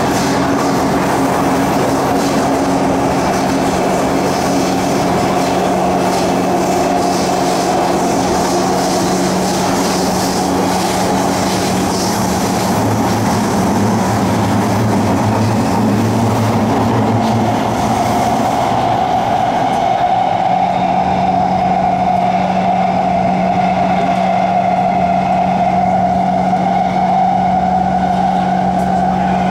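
Inside the cabin of a Kawasaki C151 MRT train running between stations: the steady rumble of wheels on rail, with a constant hum from its Toshiba permanent-magnet traction motors and inverters.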